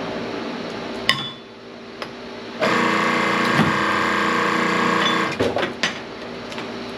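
Electric wire stripping machine running for about two and a half seconds, starting nearly three seconds in and then stopping, with metal knocks and clinks of scrap before and after.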